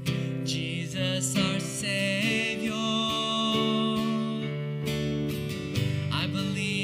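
Worship band playing a song: acoustic guitar strumming, with electric bass and keyboard underneath and a male voice singing the melody.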